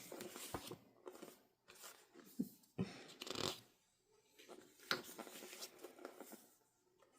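Faint paper handling: scattered soft rustles and light taps of printed album pages and cards being moved and turned.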